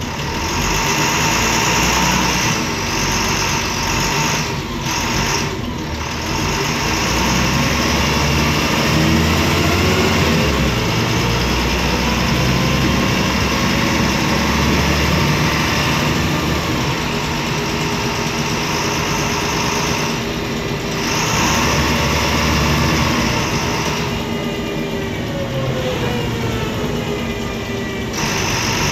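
MAN D0826 LOH inline six-cylinder diesel engine of a MAN Lion's Classic city bus running on the move, heard from inside the passenger cabin. The engine note rises and falls several times, and a higher whine joins near the end.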